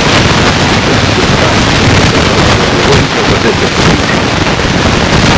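Loud, steady hiss-like noise across the whole range, with no clear speech standing out of it.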